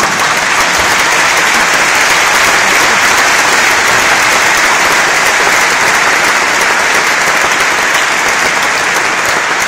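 Large audience applauding loudly and steadily: many people clapping at once in a dense, even wash of claps.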